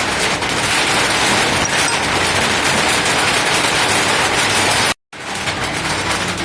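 Steady hiss of light drizzling rain, with a brief total dropout about five seconds in.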